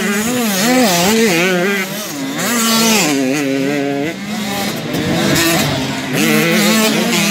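Small-wheel youth motocross bikes racing through a dirt corner one after another, their engines revving up and down as riders roll off and back on the throttle; at times two bikes are heard together at different pitches.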